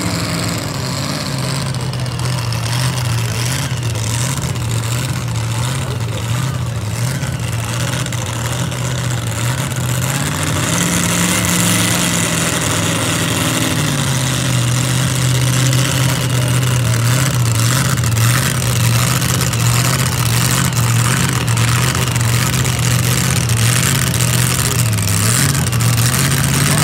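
Pulling tractor's engine running hard and steady under load, its pitch wavering; it rises a little about eleven seconds in and settles back a few seconds later.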